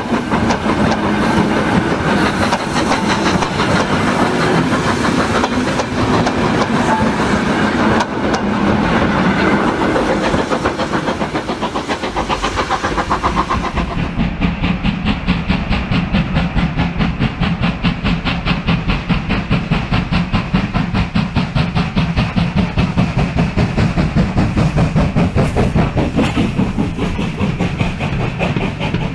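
Model railway goods train running on the track: a continuous rattle of wheels on rail. About halfway through this becomes a fast, regular clicking.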